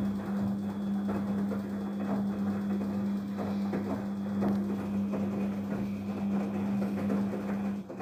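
Daewoo DWD-FT1013 front-loading washing machine in its wash phase: the drum motor hums steadily as the drum turns, while the wet cotton load tumbles and splashes with irregular soft knocks. The sound cuts off suddenly at the very end as the drum stops.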